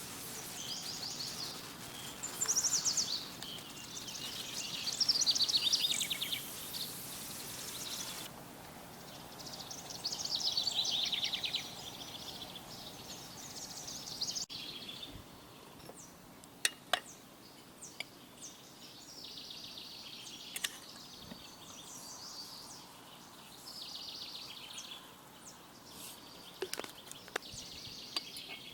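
Songbirds singing, with rapid trilled chirping phrases over a steady outdoor background. In the second half the singing thins out and scattered sharp clicks are heard.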